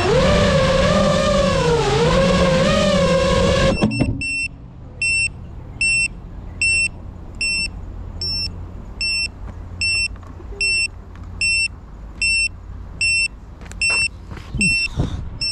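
FPV quadcopter motors whining, their pitch dipping and rising, then cutting off suddenly about four seconds in as the drone lands and disarms. After that the drone's buzzer beeps steadily, about once every 0.7 seconds, with a few handling knocks near the end as it is picked up.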